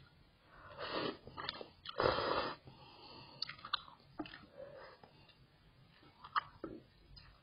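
A person slurping noodles, two loud sucking slurps in the first few seconds, then chewing with a few small sharp clicks and mouth smacks.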